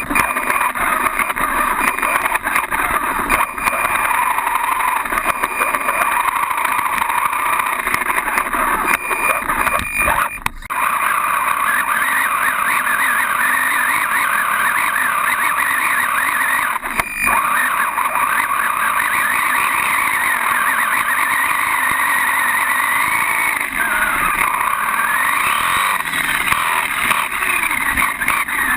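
Associated RC10 electric buggy's motor and drivetrain whining from on board as it drives, the pitch rising and falling with the throttle, with brief drops about ten and seventeen seconds in.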